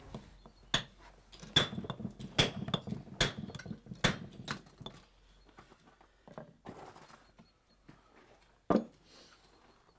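A stonemason's round hammer striking a steel chisel into a stone block: about five sharp knocks, one every second or so, each with a short metallic ring. Then fainter scattered taps and one more sharp blow near the end.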